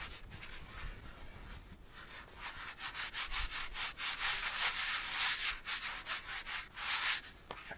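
Hand saw cross-cutting a log: rhythmic rasping back-and-forth strokes, about two a second, fainter at first and stronger from about two seconds in.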